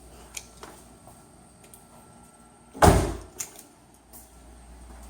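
A car door slammed shut once, a loud single thud about three seconds in, with a few light clicks of the door handle and latch around it.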